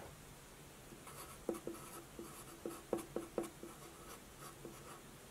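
Felt-tip marker pen writing on paper: a run of faint short strokes and taps, starting about a second in and stopping near the end.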